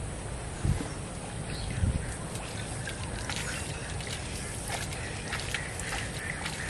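Small splashes and sloshing in a shallow pool of water, a run of sharp little ticks and splashes from about halfway on, after two dull thuds about a second apart near the start.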